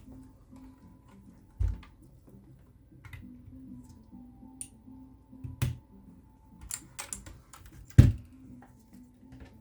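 Key presses on a Redragon K630 mechanical keyboard with clicky blue switches: a few single, separate strokes, a short quick cluster about seven seconds in, and the loudest press, with a low thump, about eight seconds in. Soft background music plays underneath.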